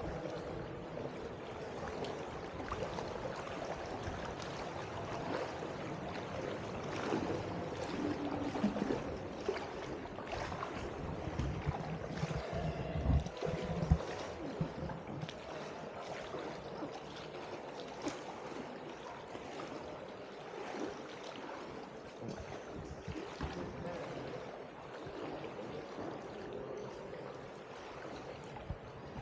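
River water lapping and splashing around floating inner tubes, a steady rush with scattered small splashes and a couple of louder knocks about halfway through.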